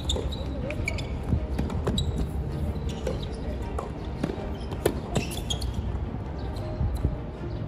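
Tennis ball struck by rackets and bouncing on a hard court during a rally: a series of sharp pops, the loudest about a second and a half in and again near five seconds, over a steady low rumble.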